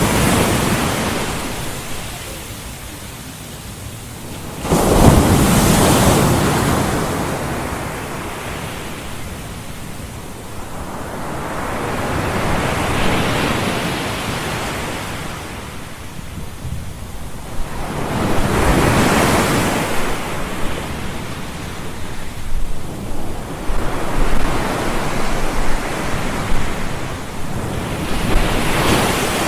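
Ocean surf: waves breaking and washing back, the hiss swelling and fading every several seconds, with the hardest break about five seconds in.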